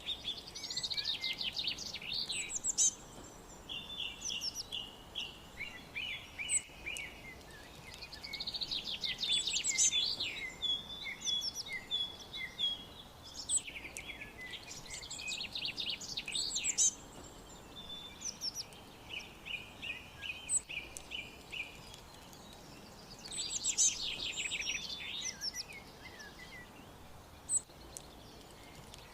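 Songbirds singing: fast trills of quick high notes come in bursts a few times, with runs of evenly repeated chirps between them, over a faint steady background hiss.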